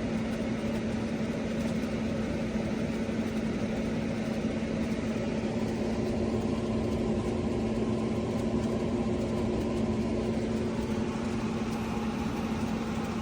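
ROVSUN 8000 BTU window air conditioner running: a steady rush of air from the fan over a steady low hum.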